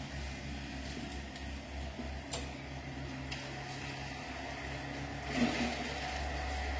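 Steady low background hum, with a single sharp click a little over two seconds in and a brief handling noise about five seconds in.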